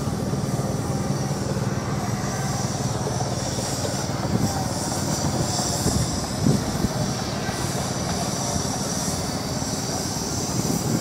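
International 3434 tractor's diesel engine running steadily, driving a Bristol air compressor off the PTO, with a few louder knocks near the middle.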